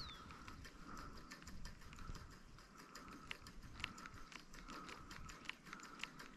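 Fishing reel being cranked: faint, rhythmic mechanical clicking, with a pulse about every two-thirds of a second and quicker small ticks between. A short falling chirp sounds right at the start.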